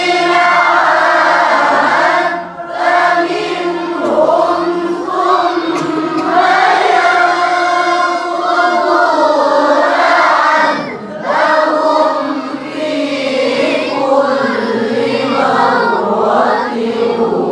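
Group of voices chanting Quranic verses together in the melodic Nahawand maqam, with long ornamented held notes. The chant breaks off briefly twice, about two and a half seconds in and again around eleven seconds, like pauses for breath between phrases.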